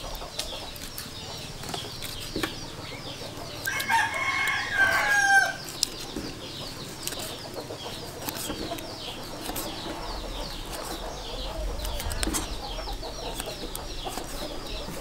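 A cleaver chopping sea snail meat on a wooden chopping board, in short scattered knocks. About four seconds in, a rooster crows once, the loudest sound, over steady high chirping in the background.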